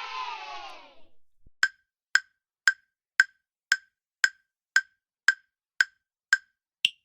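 A cheering crowd sound effect fades out in the first second. Then a wood-block tick effect: ten even ticks about two a second, and an eleventh, higher tick to finish.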